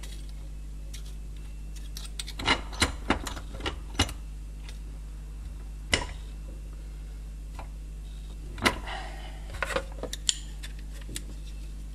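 Irregular light metallic clicks and knocks of a thin aluminium strip being bent by hand in a steel bench vise and test-fitted against a plastic handle, heard as a cluster of taps, a single knock, then a few more near the end.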